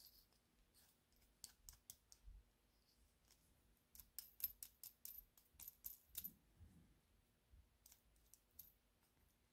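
Faint, scattered small metal clicks and clinks as the metal gear frame of an HO model locomotive, with its gear wheels and wheelsets, is handled, with a quick run of clicks about four to six seconds in.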